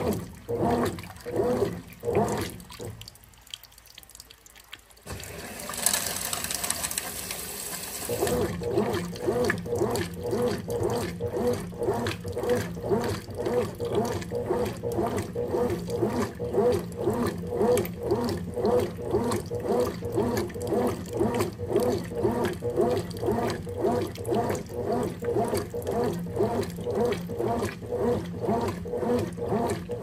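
Consul CWE13 top-loading washing machine agitating a duvet on its stain-removal cycle: water sloshing and churning with each short, even agitator stroke. The strokes stop for about two seconds a few seconds in, a hissing rush follows, and then the strokes resume at about two a second.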